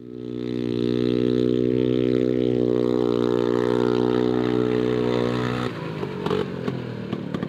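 Vintage snowmobile's two-stroke engine held at a steady high pitch as the sled races, fading in at the start. After about five and a half seconds it gives way to a rougher, noisier engine sound with clattering.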